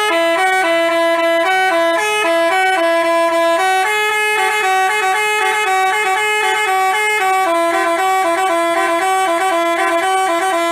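Telolet 'Basuri' musical bus horn playing a fast tune, its several horn voices sounding together and stepping between notes several times a second, then cutting off at the end.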